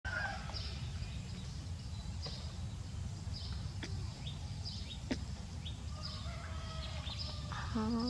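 Quiet rural outdoor background: faint short bird chirps about once a second and distant chicken calls over a low steady rumble.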